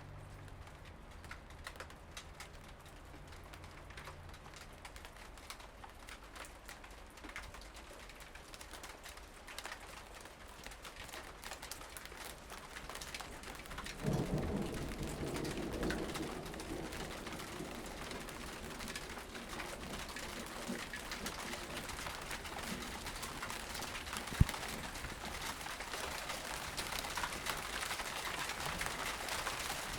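Outdoor ambience picked up raw by a handheld recorder. An even crackling hiss with fine clicks grows slowly louder. About halfway through, a lower pitched sound lasts a few seconds, and a single sharp pop comes later.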